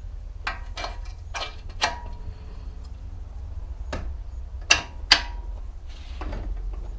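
Metal parts and tools clinking and knocking while a motorcycle swing arm bolt is being fitted: about eight sharp, irregular clicks, some with a short metallic ring, the two loudest close together about five seconds in. A steady low hum runs underneath.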